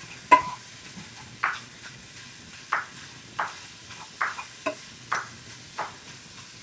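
A cooking utensil knocking against a frying pan in a string of sharp knocks, roughly one a second, as sausage is broken up in the pan; the first knock is the loudest and rings briefly.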